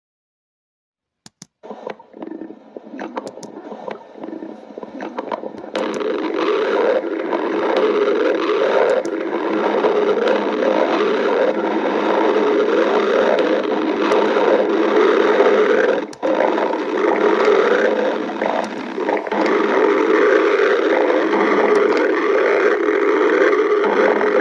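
Human stomach growling. It starts about a second and a half in, builds over the next few seconds into a loud, continuous growl, and breaks off briefly once about two-thirds of the way through.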